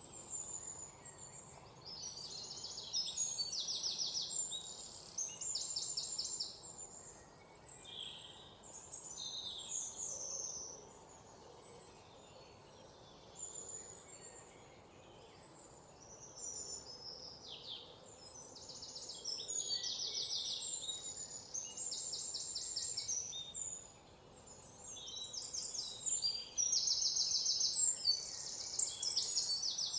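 Songbirds chirping and singing rapid, high trills in phrases a few seconds long, with short pauses between them, over a faint steady background hiss.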